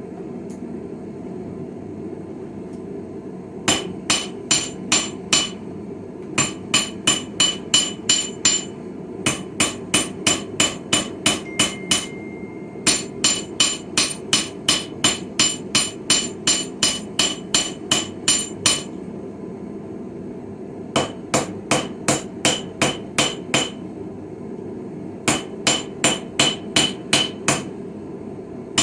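Blacksmith's hammer striking hot steel on a small Viking-style anvil while forging a chisel: runs of steady blows, about three a second, each with a bright metallic ring, broken by brief pauses. A steady low rushing noise runs underneath.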